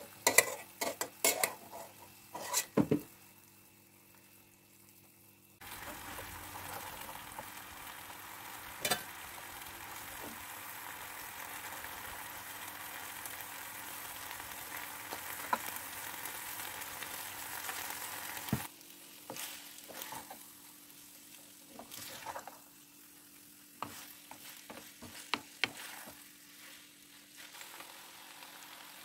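A wooden spoon knocking and scraping in a metal pan, then a steady sizzle as the garlic sauce bubbles with spaghetti in it, which cuts off suddenly. After that come more scattered spoon knocks as the spaghetti is tossed.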